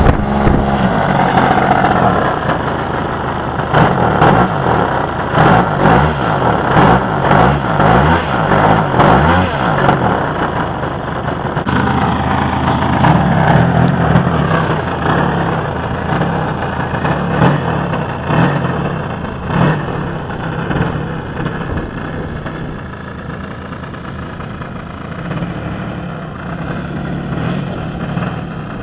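Gas engine of a large-scale radio-controlled biplane running, its pitch rising and falling as the throttle is worked through the first ten seconds, then steadier and growing quieter as the plane taxis away across the grass.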